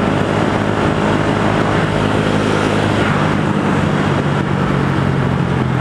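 Yamaha YZF-R125's single-cylinder four-stroke engine, fitted with an aftermarket Devil exhaust, running at a steady pitch while the bike cruises, with wind rush on the microphone.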